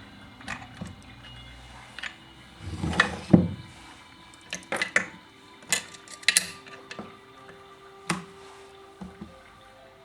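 Scattered clicks and knocks of tools and parts being handled while the oil pump is taken off a chainsaw. The loudest knocks come about three seconds in. A faint steady hum starts about halfway through.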